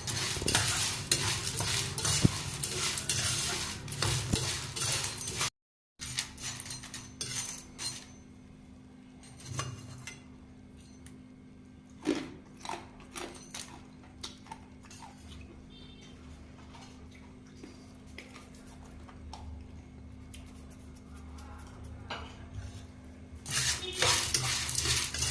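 A spoon stirring crisp fried field beans in a metal vessel to mix in chilli powder and salt: dense scraping and rattling of beans and metal, a sudden break about five seconds in, then scattered clinks and knocks until the stirring picks up again near the end.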